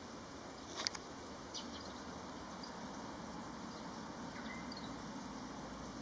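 Soft-shelled turtle snorting air out through its nose: a short sharp puff about a second in, with a fainter one just after, over a steady hiss.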